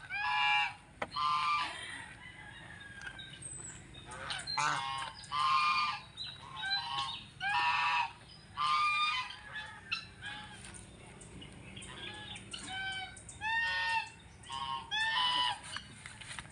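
Poultry honking: more than a dozen short, loud, pitched calls in irregular bursts, some coming in quick pairs.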